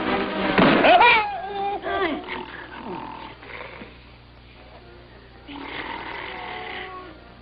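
A loud, wailing cry in a comedian's child-like voice, rising and then sliding down about a second in and trailing off over the next couple of seconds into quieter sounds.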